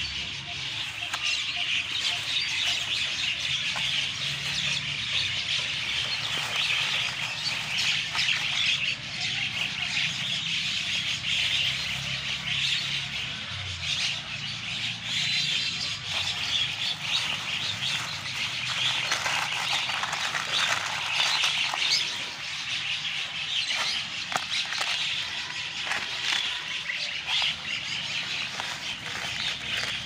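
Birds chirping, with a plastic carrier bag and paper litter rustling and crinkling as they are handled and stuffed into the bag.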